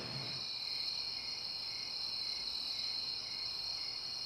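A chorus of night insects such as crickets trilling steadily at a high pitch, with a fainter, lower chirp pulsing in a regular rhythm underneath.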